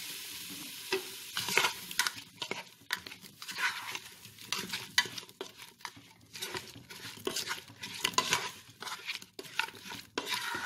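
Spatula stirring and scraping sliced bananas, spices and water in a pressure cooker pot, in many irregular strokes. A sizzle from the water just added to the hot oil dies away in the first second.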